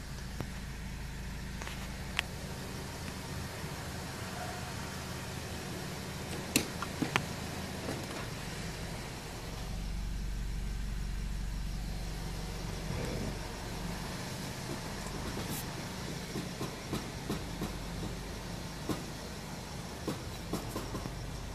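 2007 Honda Accord running at low speed while the steering wheel is turned and the throttle applied: a steady low engine hum that swells for a few seconds around the middle, with scattered sharp clicks and knocks, the loudest a quick cluster about six to seven seconds in. This is the intermittent noise that appears only when turning and accelerating, for which a workshop found no cause.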